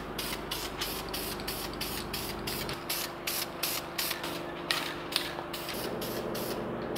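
Aerosol spray can of clear lacquer spraying onto bare plywood, a hiss that pulses several times a second.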